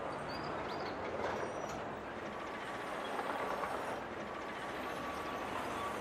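Steady rushing background noise with no clear source, with a faint, broken high tone coming in about two seconds in.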